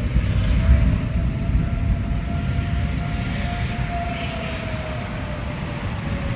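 Outdoor tornado warning siren wailing, a single tone that rises slowly and falls away near the end, over a loud low rumble of the storm.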